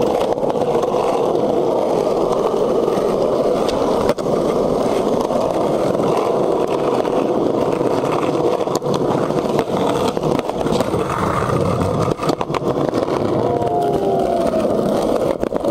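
Skateboard wheels rolling steadily over rough asphalt: a continuous rumble with a few sharp clicks over cracks and grit.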